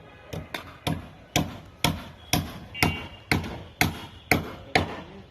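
A hammer striking steadily at about two blows a second, roughly eleven blows, the first two lighter, each with a short ringing decay.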